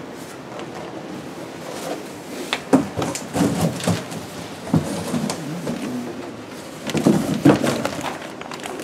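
Packaging being handled: cardboard and plastic wrap rustling and scraping, with scattered knocks, as the bundled hoses and cables of a newly unpacked washer-disinfector are moved about.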